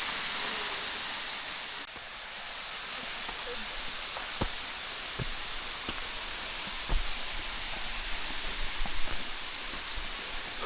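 Waterfall rushing steadily, a constant hiss of falling water, with a few soft knocks in the second half.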